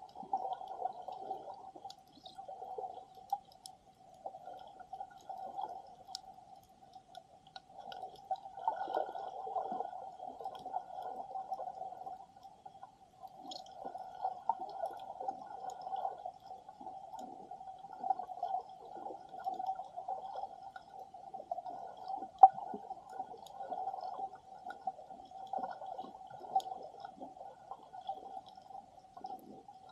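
Underwater sound picked up by a submerged camera: muffled water noise that swells and fades, with faint scattered ticks and one sharp tap about three-quarters of the way through.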